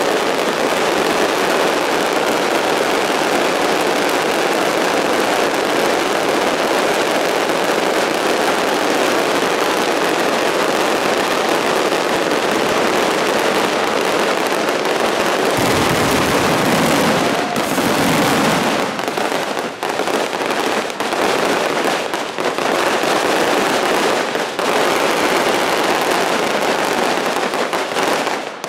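Fireworks finale: a dense, continuous barrage of shell bursts and crackle, with deeper booms a little past halfway. After that the bangs come singly with gaps between them, thinning out toward the end.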